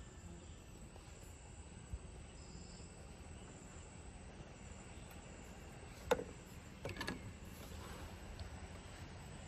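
Faint steady chirring of insects, with a few sharp knocks. The loudest knock comes about six seconds in, followed by a pair about a second later.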